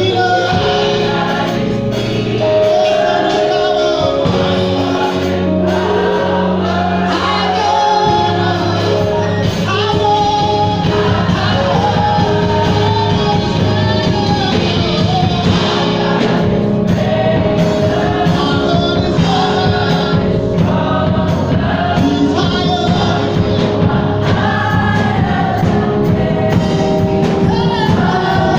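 Gospel choir singing with band accompaniment; the backing fills out about eight seconds in.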